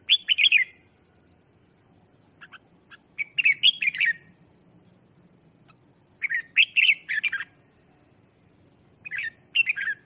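Red-whiskered bulbul, a decoy (lure) bird, singing four short warbling phrases about three seconds apart.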